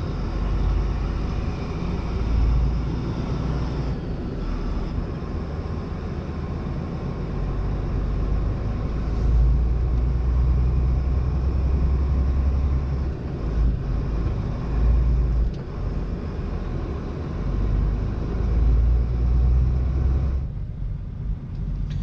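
Semi-truck's diesel engine running, heard from inside the cab as the truck drives slowly off: a steady low rumble that swells and eases with the throttle.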